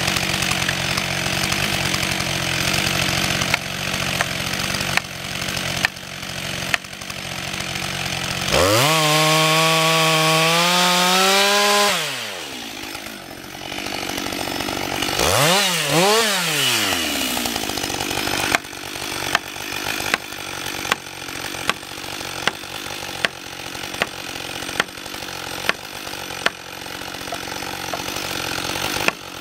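Husqvarna 562 XP two-stroke chainsaw running and cutting wood. About nine seconds in it revs up to a high steady scream for some three seconds, then drops back. It gives a second short rev-up and fall a few seconds later, then runs lower with regular sharp clicks.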